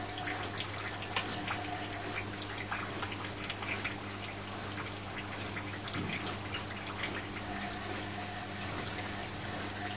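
Hoover A3308 Computer Control 1100 washing machine draining: the drain pump hums steadily while water splashes and trickles through the drum and hose.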